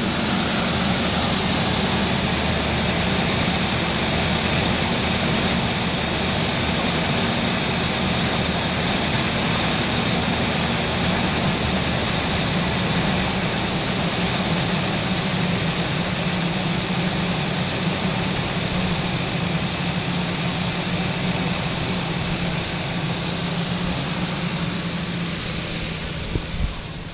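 2003 Ford Expedition's 5.4 L V8 idling steadily under an open hood, with a steady high-pitched whine over the engine note.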